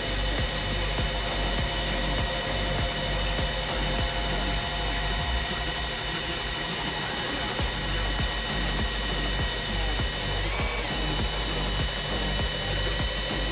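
Electric drill spinning a Chrysler engine's oil pump to pre-lube it, running at a steady speed with a brief rise in pitch about ten seconds in.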